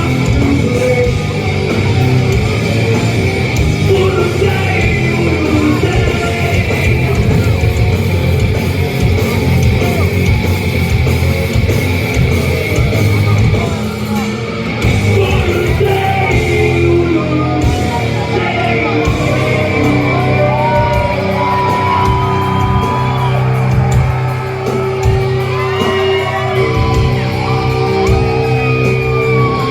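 Heavy rock band playing live at full volume: distorted guitars, bass and drums with yelled and sung vocals. Long held notes ring out over the band in the second half.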